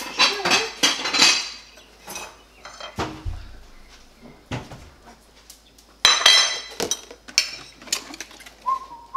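Ceramic plates clinking and knocking against each other and the countertop as dishes are handled, in two clusters of sharp clatter with a dull thump about three seconds in.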